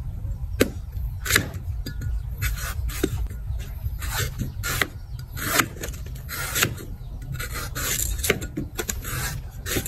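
A steel cleaver shaving and chopping the fibrous green husk of a young coconut, in quick irregular scraping strokes about twice a second, some ending in a sharp knock. A steady low hum runs underneath.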